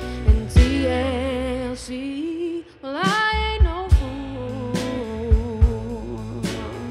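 Live pop band with a female lead singer over electric guitar, bass, drum kit and piano. The band drops out briefly about two and a half seconds in, then the voice slides up and the drums come back in.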